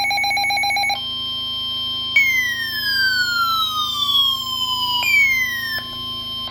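Weather alert radio sounding its alert alarm: a rapidly pulsing electronic tone for about a second, then a steady tone with a siren-like sweep that falls in pitch, starting about two seconds in and starting again near five seconds. It marks an incoming severe thunderstorm warning.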